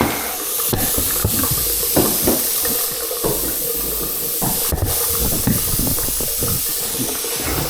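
Faucet water running into a sink and splashing down the newly replaced pop-up drain, a steady hiss as the drain is tested for leaks.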